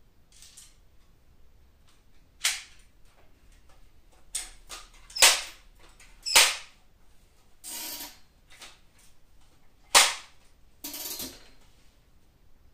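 Multi-pump pneumatic air rifle being fired and handled: several sharp cracks, the loudest about five, six and ten seconds in, with lighter clicks between. Two short rushing sounds of about half a second follow the later shots.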